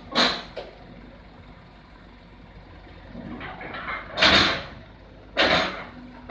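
Heavy equipment's diesel engine running steadily, broken by four loud, short bursts of clanking or hissing: two close together at the start, then two more over a second apart near the end.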